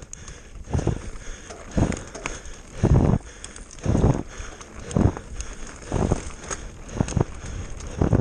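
Mountain bike riding fast down a dirt forest trail: tyre and trail noise with heavy thuds about once a second as the bike hits bumps.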